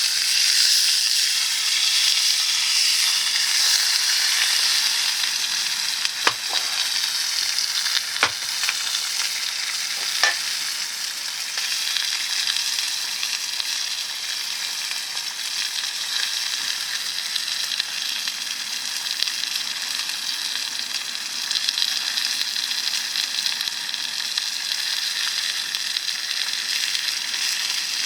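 Food frying in a skillet, sizzling steadily, with three sharp clicks about a third of the way in.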